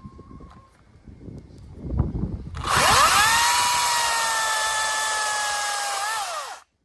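Makita DUC254 18-volt brushless battery chainsaw spinning up quickly and running with a high whine and a hiss, its pitch sagging slightly as it runs. Near the end it falls and rises briefly, then stops abruptly. The chain is one the owner thinks he has blunted badly. A few knocks come just before the saw starts.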